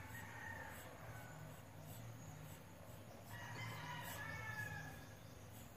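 Faint, low steady hum, with a distant rooster crowing about three seconds in.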